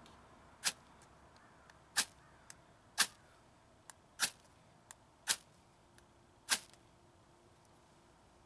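Main blade of a Victorinox Farmer Alox Swiss Army knife struck down a ferrocerium fire steel six times, about once a second, each stroke a short sharp scrape, with a few light ticks between.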